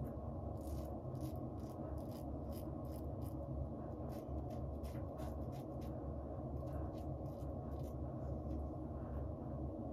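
Stainless steel Timeless safety razor with a Feather blade scraping through lathered stubble around the mustache: short strokes in quick succession, thinning out over the last few seconds, over a steady low hum.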